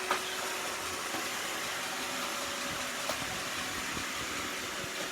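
iRobot Roomba 690 robot vacuum running with a steady whir, with a brief click just after the start and another about three seconds in.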